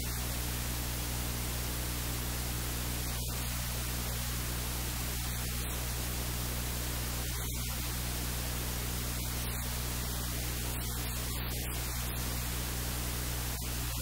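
Steady static hiss over a low electrical hum, with no other sound: noise in the recording's audio chain rather than anything in the kitchen.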